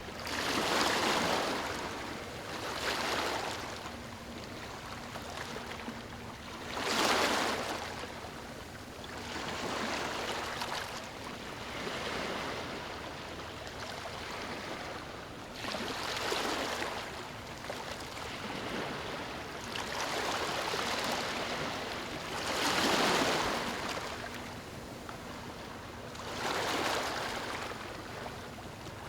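Small waves lapping on a beach, each wash swelling and fading every few seconds, some surges louder than others.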